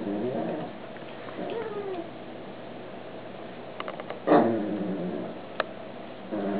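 Pekingese dogs at play giving a few short, pitched yelps and whines. The loudest comes about four seconds in, and another falls near the end.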